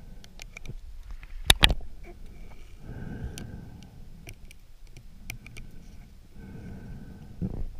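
Underwater sound from a camera at and just below the sea surface: scattered sharp clicks, two loud knocks close together about a second and a half in, and two swells of low water noise.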